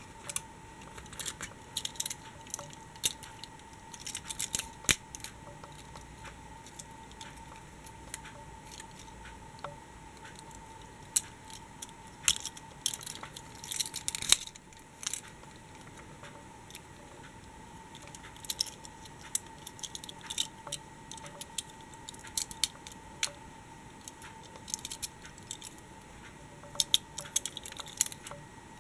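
Die-cast and plastic toy vehicles being handled: scattered small clicks, taps and clatter as the models are picked up, turned over and set down, over a faint steady high tone.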